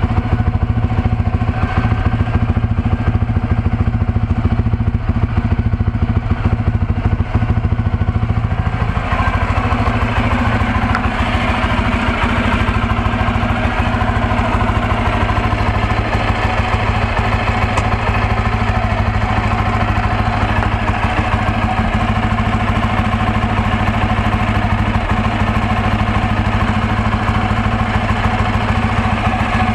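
Bajaj Pulsar N250's single-cylinder engine idling steadily. The sound turns brighter about nine seconds in.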